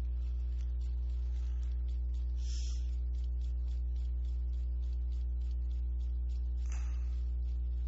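Steady electrical mains hum: a low buzz with a stack of even overtones above it that does not change. It is broken only by two faint, brief hisses, about two and a half and seven seconds in.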